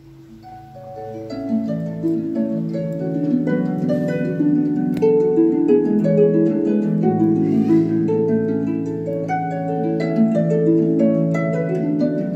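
Instrumental music, a melody of distinct decaying notes, played from a MiniDisc through a Pioneer X-MDX737 mini hi-fi system's full-range paper-cone speakers. It swells up over the first two seconds as the volume is turned up, then plays on at a steady level.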